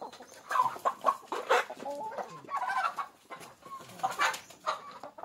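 Rhode Island Red hybrid hens clucking and squawking in many short, broken calls while they are caught and held by hand, with sharp scuffling noises among the calls.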